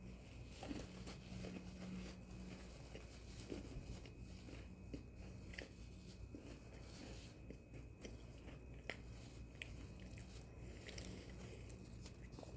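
Faint chewing and crunching of Oreo sandwich cookies, with scattered small crunches over a low steady hum.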